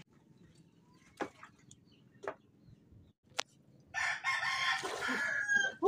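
A rooster crowing, one loud call starting about four seconds in, after a few faint clicks in near quiet.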